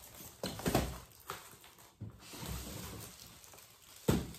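Foil-wrapped gift boxes being handled and opened: rustling and crinkling of metallic wrapping paper, with a few knocks of the boxes, the loudest about a second in and near the end.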